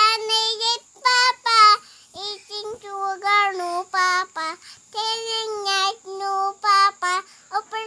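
A toddler girl singing in a high child's voice, a string of held notes about half a second to a second long with short breaks between them.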